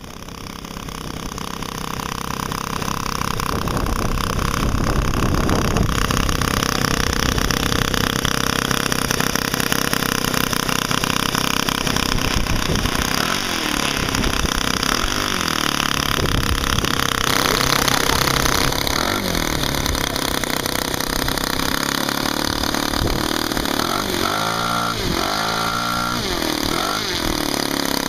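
Laser 100 four-stroke model aircraft engine running on its first run after purchase, fading in over the first few seconds and then running steadily, its note wavering near the end.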